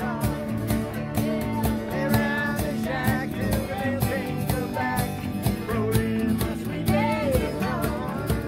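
Small acoustic string band playing a country tune: several acoustic guitars strumming a steady rhythm while a fiddle plays the wavering melody line above them.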